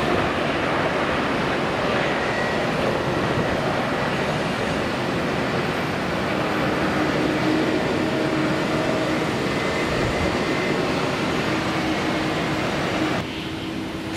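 Boeing 777's twin jet engines giving a steady, loud roar with a faint hum running through it as the airliner rolls along the runway. The sound drops abruptly near the end.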